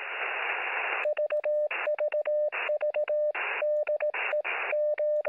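Radio static for about a second, then a steady Morse-code-like tone keyed on and off in quick short breaks, alternating with bursts of static, as heard through a ham radio receiver.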